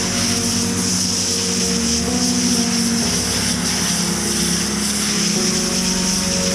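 Pressure-washer foam gun spraying snow foam in a steady high hiss.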